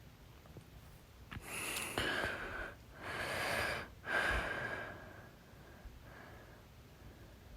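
A woman breathing heavily: three noisy breaths of about a second each in quick succession, then a fainter fourth.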